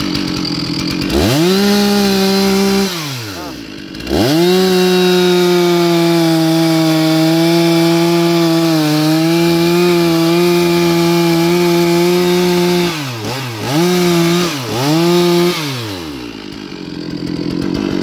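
Stihl two-stroke chainsaw cutting into the base of a jackfruit trunk. It revs up hard for a couple of seconds, drops back, then runs at full throttle steadily for about nine seconds. It then blips twice and falls back to idle near the end.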